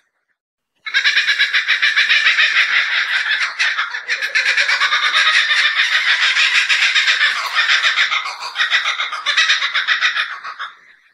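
Kookaburra's laughing call: a long run of rapid cackling notes that starts about a second in, keeps going loud for most of the stretch and tails off near the end.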